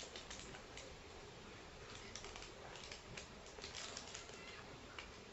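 Faint, irregular clicks and crinkles of plastic candy packets and wrappers being handled while the candy is eaten.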